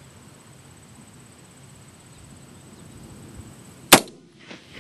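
A single AR-15 rifle shot about four seconds in, sharp and loud, trailing off briefly after it.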